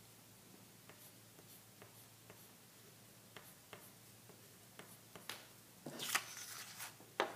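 Stick of chalk drawing on paper: faint light scratches and ticks as short strokes are made. About six seconds in, a louder rustle of the paper moving on the desk, followed near the end by a couple of sharp clicks.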